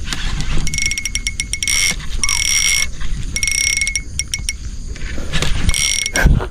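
Fishing reel being cranked in several short bursts, a fast clicking whirr with a steady high whine, as line is reeled in.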